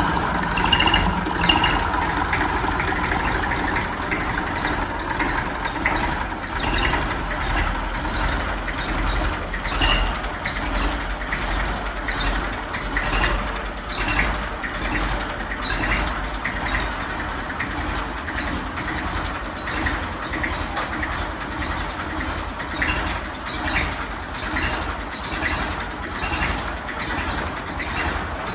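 IMT 533 tractor's three-cylinder diesel engine running steadily. Its fan belt has just been tightened, so the loose-belt noise is gone.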